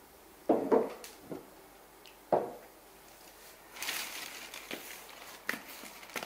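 Glass jars set down on a wooden table: a couple of knocks about half a second in and another near two and a half seconds, followed by rustling from about four seconds in.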